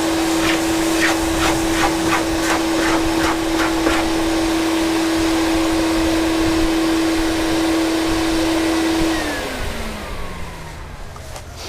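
Vacuum cleaner hooked up to a paint-scraping iron, running with a steady whine and hiss, with a quick series of scraping strokes over the first four seconds as old antifouling is scraped off a boat hull and sucked away. About nine seconds in the vacuum is switched off and its whine falls away as the motor spins down.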